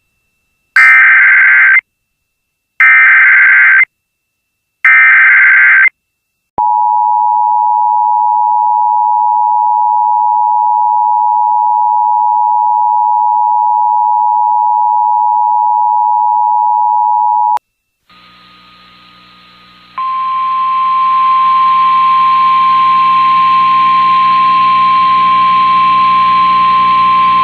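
Emergency Alert System broadcast over FM radio. It opens with three one-second bursts of SAME digital header data, then the two-tone EAS attention signal holds for about eleven seconds and cuts off. After a brief low hum, a hissy, humming relayed feed carries a single steady alert tone, NOAA Weather Radio's warning alarm, from about twenty seconds in.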